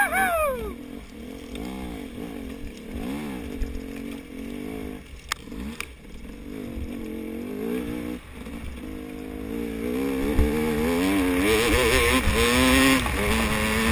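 KTM 250 XC two-stroke dirt bike engine revving up and easing off over and over, then running louder at higher revs from about ten seconds in. A single sharp knock about five seconds in.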